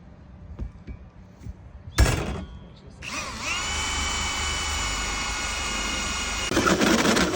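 Cordless power drill spinning up and running with a steady whine, then turning rough and grinding near the end as it bites into the van roof. A sharp knock comes about two seconds in, just before the drill starts.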